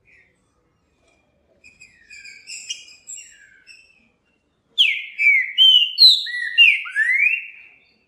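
A saltator singing: a few soft, high twittering notes, then, about five seconds in, a loud phrase of clear, slurred whistles that swoop down and up.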